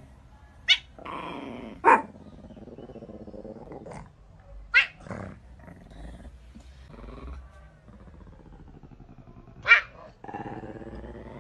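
Cat growling in long, drawn-out low yowls that waver in pitch, broken by four short, sharp, loud outbursts, like spits or hisses, about one, two, five and ten seconds in.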